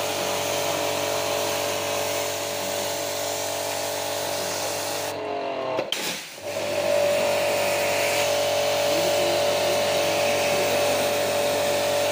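Small electric motor running with a steady whine over a hiss. About five seconds in it spins down briefly, then runs again steadily.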